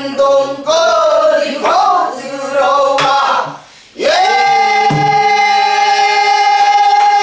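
A group of men and women singing Korean folk song in unison, pansori-style, with voices sliding and bending in pitch, then a short break and, about four seconds in, one long held note. A buk barrel drum is struck a couple of times.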